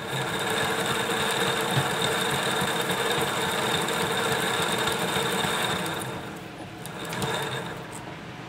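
Gorman Machine Super 900 CNC toroid winder running, winding 29 AWG copper wire onto a toroidal core in a progressive sector winding of four turns forward and two back. It makes a steady mechanical whirr with a steady high tone, loud for about six seconds, then easing off with a short surge near seven seconds.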